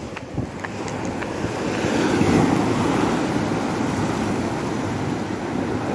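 Sea surf breaking and washing over low shoreline rocks: a steady rush of water that builds over the first two seconds and then holds.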